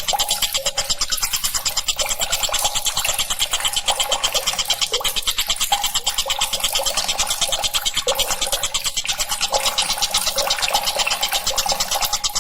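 Tengkek buto kingfisher calling in a fast, unbroken scratchy chatter of about ten notes a second.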